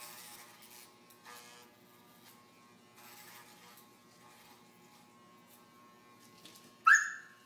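Corded electric dog clippers running with a steady buzz as they are worked through a dog's long coat. Near the end, a brief, loud cry cuts in.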